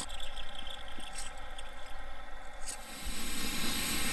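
Liquid-fuel backpacking stove burning just after lighting: a soft sputtering hiss from the yellow priming flame, with a few light clicks. About three seconds in, a steady, louder hiss with a low rumble sets in as the burner catches and burns blue under pressure.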